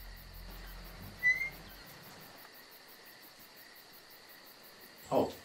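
Crickets chirping steadily in the night background. About a second in there is a short rising chirp. A low hum stops about two seconds in, and a brief low sound comes near the end.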